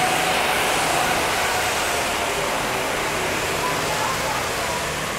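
Sodi RT8 rental go-kart driving off on a wet track: a steady hiss of tyre spray and rain under a faint engine whine, slowly fading as it pulls away, with other karts' engines in the distance.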